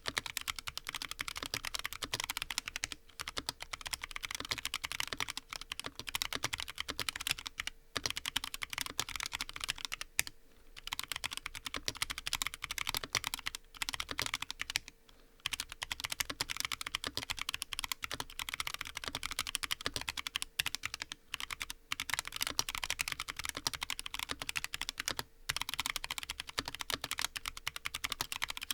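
Fast, continuous typing on a custom mechanical keyboard with lubed Huano White Blue switches on a brass plate: a dense run of key clicks and bottom-outs, with brief pauses about 10 and 15 seconds in.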